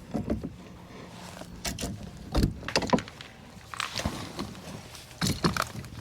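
Irregular knocks, taps and rattles as a freshly caught redfish and fishing tackle are handled aboard a kayak, with the heaviest knocks about two and a half seconds in and again near the end.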